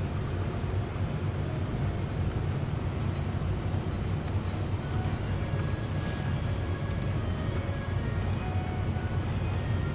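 Steady low hum with a faint background murmur: conveyor-belt sushi restaurant ambience.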